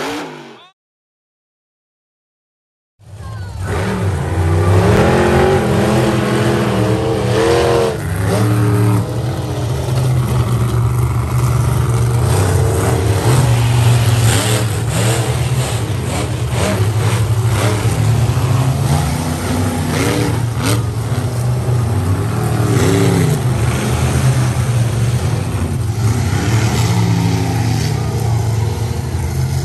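Several monster truck engines running loud and steady over one another, with revs rising and falling a few seconds in, after a short fade of music and a gap of silence at the start.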